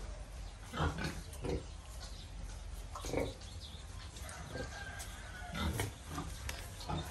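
Pigs grunting in short, low bursts, about five over several seconds: a sow with piglets suckling at her teats.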